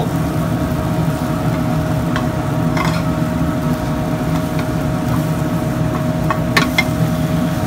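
A spatula taps and scrapes in a nonstick omelette pan as the omelette is turned over, with a few light knocks about three seconds in and near the end. Under it runs the steady hum of a commercial kitchen, gas burners lit, with perhaps a faint sizzle from the pan.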